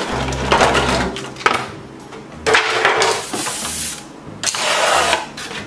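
Clear plastic packaging crinkling and rustling in three spells as it is pulled off a toy table and chairs, with a few light knocks of plastic furniture being handled.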